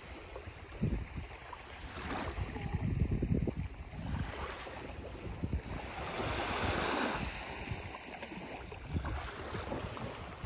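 Small waves washing up on a sandy shore, the wash swelling and falling back every few seconds, with wind buffeting the microphone in low rumbles.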